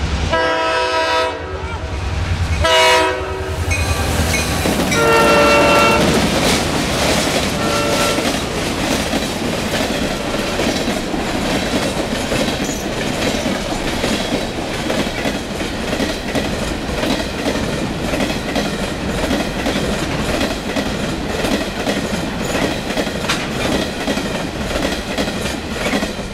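New York & Atlantic GP38 diesel locomotive sounding its multi-tone air horn in several blasts over its engine rumble in the first few seconds, a last short one about eight seconds in. Then the freight train's cars roll past with steady clickety-clack of the wheels over rail joints.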